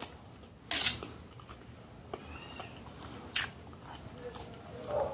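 Close-miked chewing of food, broken by a few short sharp clicks, the strongest just under a second in: a metal spoon working against a stainless steel plate.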